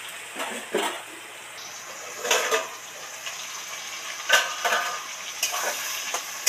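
Potato pieces frying in oil in a steel wok, with a steady sizzle from about one and a half seconds in. A steel plate lid clanks on the wok and a metal spatula knocks and scrapes against it several times.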